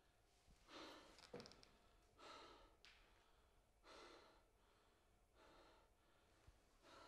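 A man breathing heavily and unevenly through his open mouth in shock and distress: five quiet, ragged breaths, about one every second and a half.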